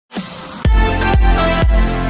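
Electronic dance music with a heavy kick drum about twice a second, which comes in about half a second in after a short lead-in.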